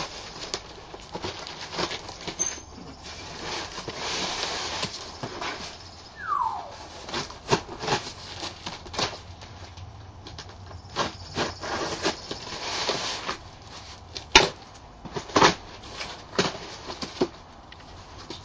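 Cardboard shipping box being opened by hand: rustling and scraping of cardboard and packing tape, with a series of sharp clicks and knocks as the flaps are worked loose. A short squeal falls in pitch about six seconds in, and the loudest knocks come near the end.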